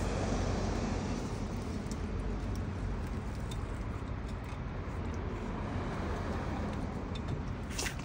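Steady low rumble of road traffic, with a faint knock near the end.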